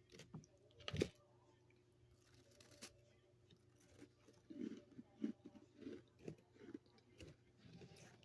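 Freezer frost being bitten with one loud crunch about a second in, then chewed in a run of soft, squishy crunches from about four seconds in.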